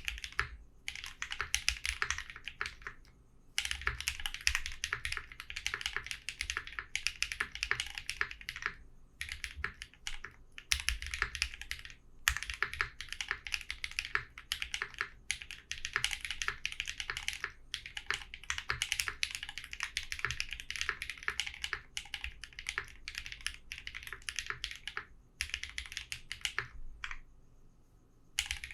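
Typing on a mechanical keyboard with Raed switches: fast, continuous runs of key clacks broken by brief pauses, with a longer pause near the end.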